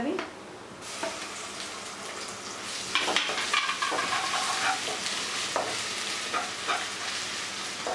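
Browning onions and freshly added ginger-garlic paste sizzling in hot oil in a nonstick kadhai. The sizzle gets louder about a second in, and a spatula scrapes and stirs against the pan several times.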